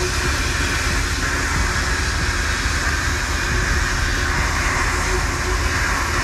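Car hauler trailer rolling down the road at speed, heard from a camera mounted on the trailer: a steady, loud rumble of tyres and running gear with a constant rushing noise over it.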